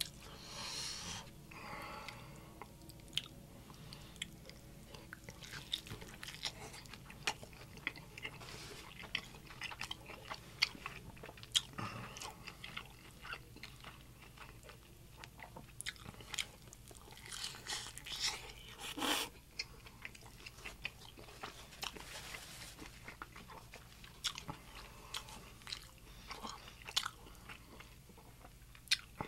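A man chewing and biting into crisp-fried birria tacos close to the microphone, with irregular crunches and chewing clicks, and a few louder bursts around one second in and between seventeen and nineteen seconds in.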